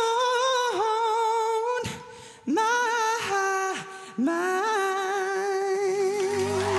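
A male solo singer holds long, high notes with vibrato, sliding up into each one, almost unaccompanied. The phrases break off briefly about two seconds in, and the last note is held from about four seconds on. Low backing chords come in near the end.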